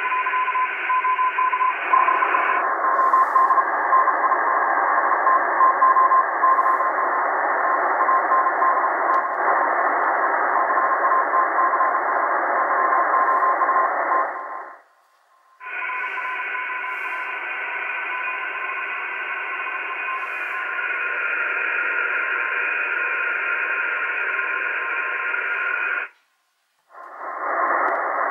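Tecsun PL-880 shortwave receiver in SSB mode on the 80 m band, giving hiss and static with a steady whistle of a carrier. Its audio narrows and widens as the bandwidth is switched, and the sound cuts out briefly twice.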